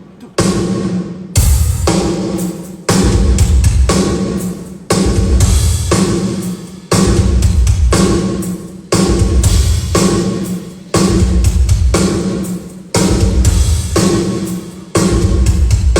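A drum kit played through the PA in a steady repeating groove during a sound check, with a heavy kick-drum hit about every two seconds and lighter snare and cymbal strikes between. The engineer has just fixed a hollow tone in one of the drums.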